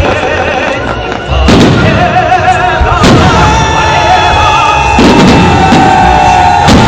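Fireworks salute: four heavy booms of shells bursting, one every one and a half to two seconds, with steady and wavering tones sounding between the bursts.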